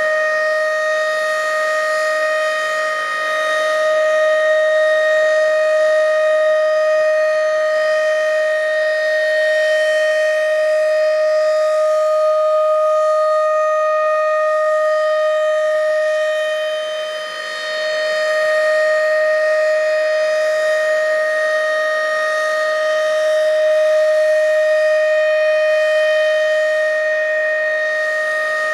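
Federal Signal RSH-10 outdoor warning siren sounding its full-alert signal, one steady held tone with strong overtones, loud from directly beneath it. The level dips briefly twice, about fourteen seconds apart.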